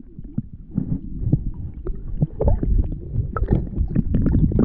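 Muffled underwater sound from a microphone submerged in shallow sea water: a steady low rumble with many small clicks and crackles of moving water.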